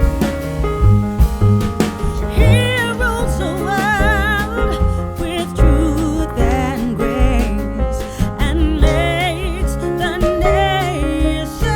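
Background music: a song with a singer's voice wavering in vibrato over piano-like accompaniment and a steady, heavy bass beat.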